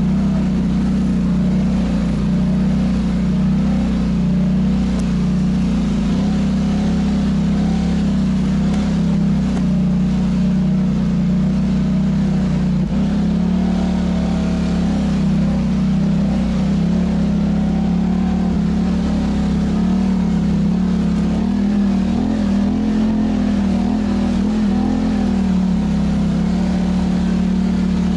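Polaris Sportsman ATV's twin-cylinder engine running at a steady trail-riding pace, the revs rising and falling slightly.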